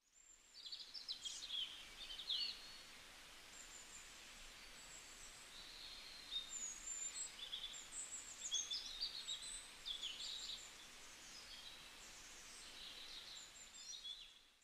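Birds chirping and twittering, faint: a scattered string of short, high calls and quick sliding notes over a low background hiss.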